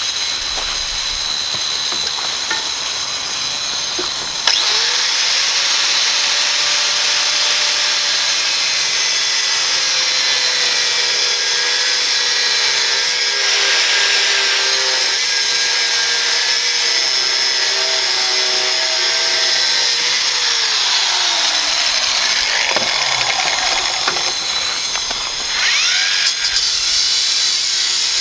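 Angle grinder fitted with a Graff Black diamond cut-off wheel, running and cutting, a continuous harsh hiss. A motor whine sets in about four seconds in and falls steadily in pitch about twenty seconds in.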